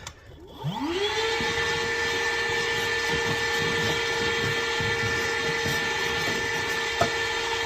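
A power tool's electric motor driving a brush to loosen dirt inside an air-return duct: it spins up quickly in the first second to a steady high whine and holds it, with a light knock about seven seconds in.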